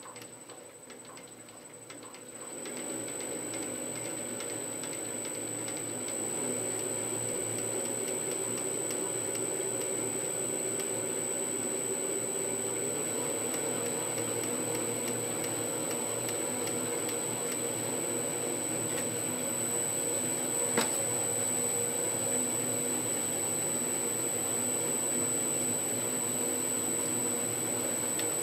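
Boxford AUD lathe running under its inverter-fed motor, headstock spindle and chuck turning with a steady mechanical hum and a steady high whine over it. The running sound gets louder in two steps, about two and a half and six and a half seconds in, as the inverter's speed is raised, and there is a single click about twenty seconds in.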